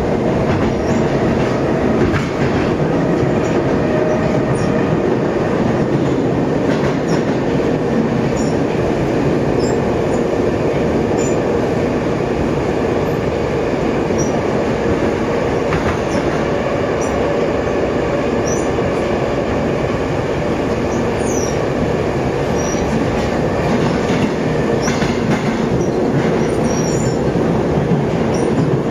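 Ride noise inside a Moscow Metro 81-775/776/777 "Moskva 2020" train car running at steady speed between stations: a loud, even rumble of wheels on rail, with short high wheel squeaks now and then.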